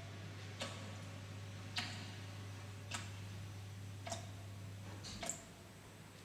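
Clock ticking, one sharp tick about every second, over a faint low hum that stops about five seconds in.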